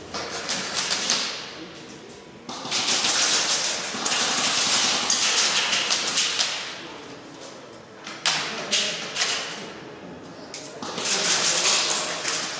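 Airsoft guns firing rapid full-auto bursts, four of them, the longest about four seconds.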